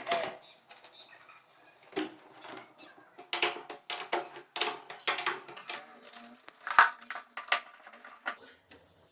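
Irregular sharp clicks and small metallic knocks as the refrigerator door's top hinge is fitted and bolted back on.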